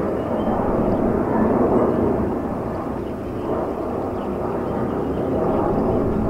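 Steady rushing background noise, even in level, with no bird calls or distinct knocks.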